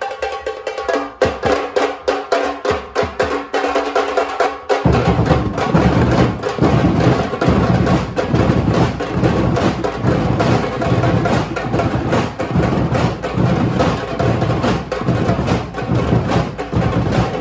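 Percussion ensemble playing a rhythm: crisp, higher-pitched strikes at first, then about five seconds in deeper drums come in and the full group plays on with a steady beat.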